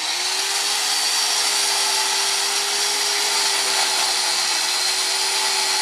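Corded electric chainsaw running steadily at full speed, cutting through a tree limb.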